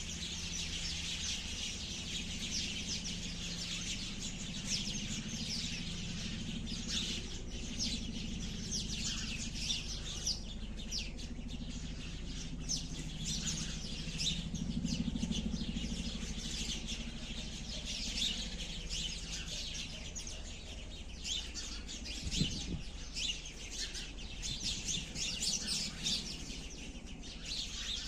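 A flock of sparrows chirping continuously, many short overlapping chirps at once. A low steady hum runs underneath.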